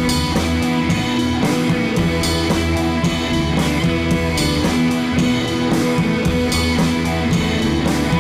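Background music: an upbeat instrumental track with guitar and drums and a steady beat.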